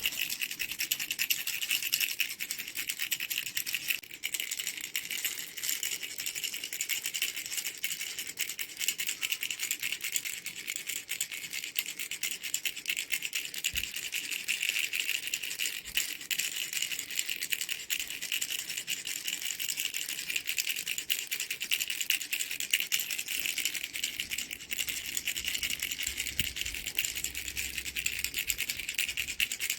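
Mango-shaped baby rattle shaken without pause, a fast, unbroken rattling.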